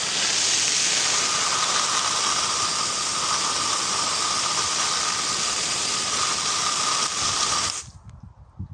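An electric air blower running: a loud, steady rush of air with a steady whine, cutting off near the end.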